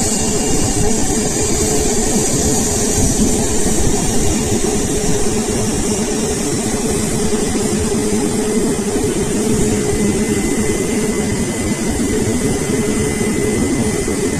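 Jet engines of an Airbus A320neo running at taxi power: a steady, loud rumble with a high hiss that eases over the first few seconds.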